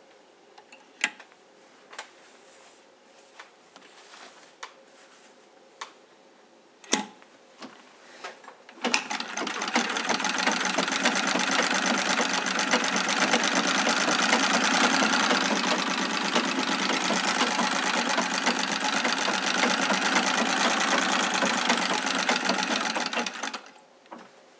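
1920 Singer 66 treadle sewing machine: a few sharp clicks, then about nine seconds in it starts sewing with a fast, even stitching rhythm that runs steadily for about fourteen seconds before stopping abruptly. The machine is running smoothly, with no issue.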